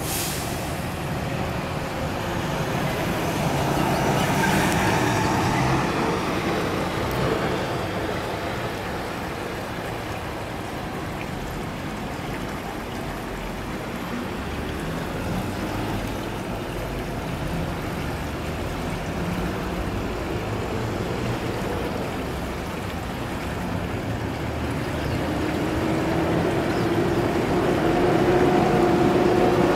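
Road traffic noise: a steady hum of passing vehicles that swells about four seconds in. Near the end it grows louder as a vehicle's engine note comes up and rises slightly in pitch.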